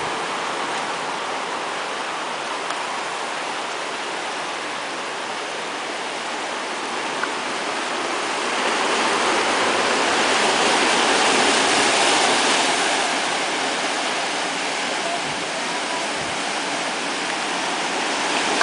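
Surf breaking and washing over rocks on a rocky shore: a steady rush of white water that swells louder about halfway through and then eases off.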